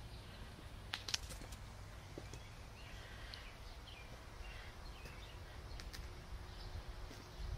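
Quiet outdoor backyard ambience: faint, scattered bird chirps over a steady low rumble, with a couple of sharp clicks about a second in.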